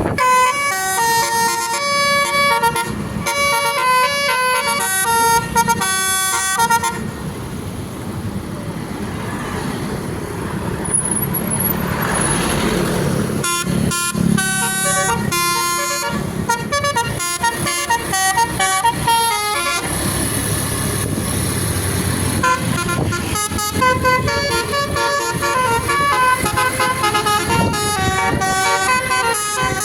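Basuri musical multi-tone bus horn playing tunes: quick runs of held horn notes stepping up and down in pitch, in three stretches with short pauses between.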